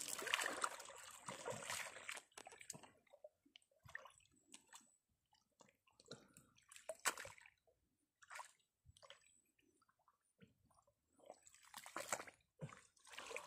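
Pond water splashing and sloshing in irregular bursts, heaviest at the start and again near the end, with a sharp splash about seven seconds in.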